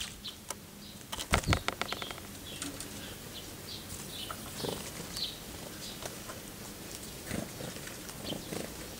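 Great tits' wings fluttering as they land at a metal water tub, with a quick run of wingbeats about a second in and short, high chirps scattered throughout.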